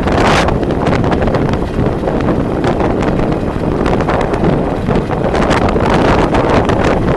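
Strong wind buffeting the microphone of a camera on a moving vehicle, with a steady rumble of road and vehicle noise underneath.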